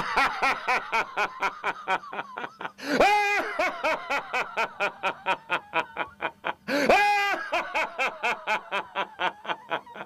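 A man's theatrical villain's laugh, acted for a film dub: a rapid staccato 'ha-ha-ha' of about six beats a second, broken twice by a long held 'ha-a-a', about three and seven seconds in.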